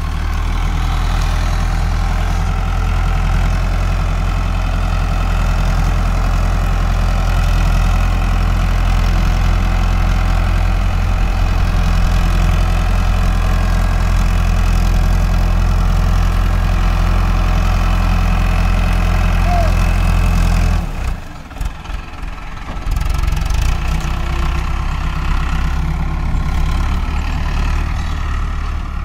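Mahindra Arjun tractor's diesel engine running steadily under load as it drags a potato digger through the soil. The drone drops away briefly about three-quarters of the way through, then comes back.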